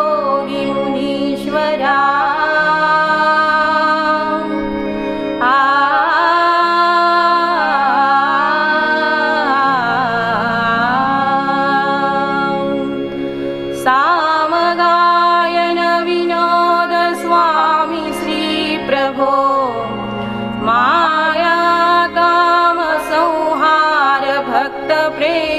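Kakad aarti devotional hymn: a voice singing long melodic phrases over a steady held drone.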